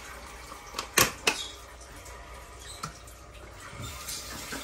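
A few sharp clicks and light taps of handling at a kitchen counter, a close pair about a second in and a softer one near three seconds, over a faint steady low hum.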